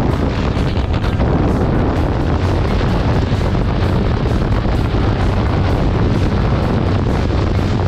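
Steady, loud wind rush buffeting the camera microphone on a Honda CBR 250R motorcycle cruising at about 90 km/h, with the bike's engine running steadily underneath.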